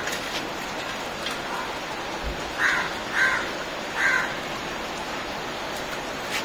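A bird calling three times in quick succession, short harsh caw-like calls spread over about a second and a half in the middle, over a steady background hiss.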